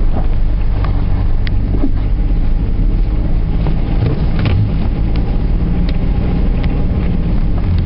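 Snowplow truck's engine running steadily with a low hum, with a few short clicks scattered through.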